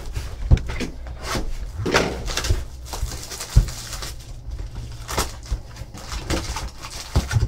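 Plastic shrink-wrap crinkling as it is torn off a cardboard trading-card hobby box, with the box being handled and opened: irregular rustles and a few light knocks.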